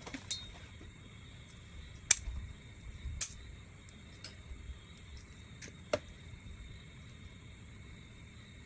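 Half a dozen short, sharp clicks or taps at irregular intervals over a faint steady hiss; the loudest comes about two seconds in, with another sharp one near six seconds.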